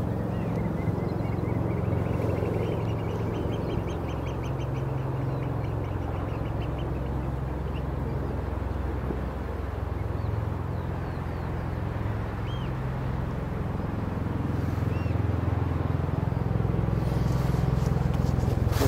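Oystercatchers calling: a fast run of high piping notes starting about half a second in and lasting some four seconds, then two single short calls later on, over a steady low rumble.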